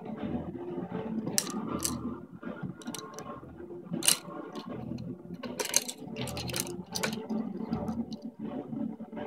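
Plastic baby toy rattling and clacking as it is shaken and handled, in short sharp clicks that come about every second, over a low steady background noise.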